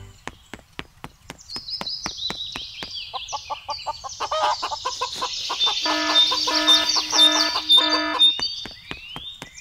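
Chicken sound effects: high, gliding peeps of chicks, with a run of five louder clucking pulses about two-thirds of the way through, over a steady rapid clicking.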